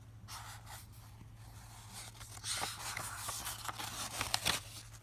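Paper rustling as a picture book's page is turned, a soft crinkling swish with a few small crackles, building about halfway through and dying away near the end.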